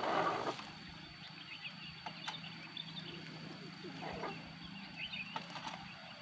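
Kubota RD65 single-cylinder diesel engine of a hand tractor running with a steady hum, surging louder right at the start and briefly again twice later on.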